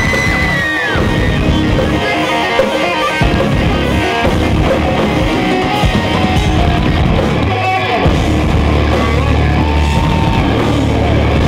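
Loud rock music led by electric guitars, with a steady low bass note coming in about two-thirds of the way through.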